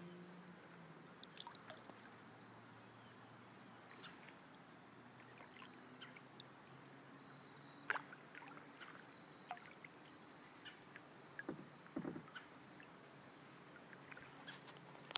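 Quiet river: faint water lapping against a small boat, with scattered light clicks and knocks, a sharp click about halfway through and a couple of knocks a few seconds later.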